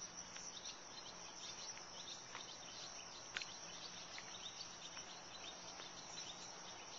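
Faint evening insect chorus, a steady high-pitched drone, with scattered short bird chirps, the sharpest about three and a half seconds in.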